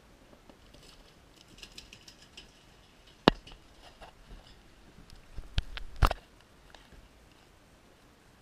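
Gear being handled on a plastic sit-on-top kayak: light rustling, then three sharp knocks against the hull, about three, five and a half and six seconds in.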